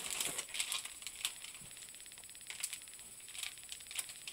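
Faint rustling and scattered light clicks of plastic-wrapped snack packets being handled and pulled out of a cardboard box.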